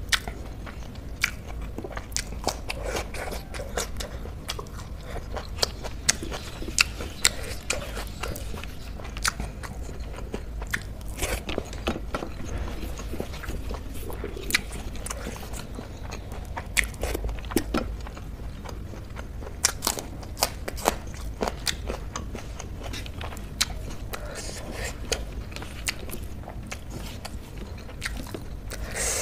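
Close-miked chewing and crunching of food in the mouth, with many sharp, crisp crunches scattered throughout: raw spring onion being bitten and chewed along with soy paneer bhurji and rice.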